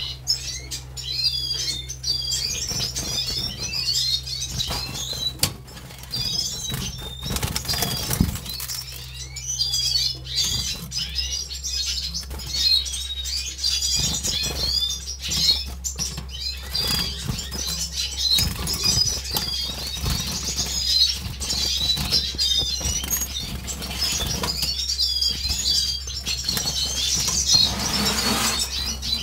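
Caged finches singing a continuous, rapid twittering warble, with fluttering wing beats and hops against the cage.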